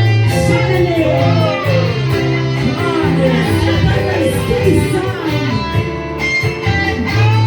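A pop band playing an instrumental break between sung lines: electric guitar with gliding, bending notes over a steady bass line and beat.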